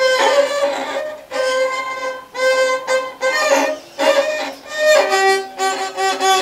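Handmade rabeca, a Brazilian folk fiddle, bowed in a halting string of separate strokes, mostly on the same note with a lower note near the end. The instrument has not been tuned.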